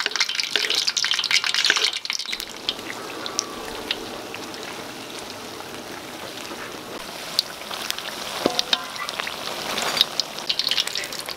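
Batter-coated pineapple pieces sizzling and crackling as they deep-fry in oil in a metal wok, with a few sharp clicks of a metal ladle. The crackle is louder in the first two seconds, dies down, and builds again from about seven seconds in.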